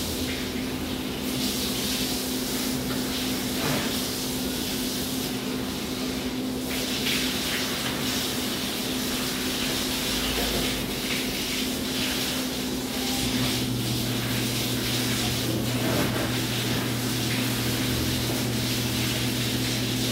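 Steady watery hiss of a soapy floor being washed, over a constant hum; a deeper hum joins about two-thirds of the way through.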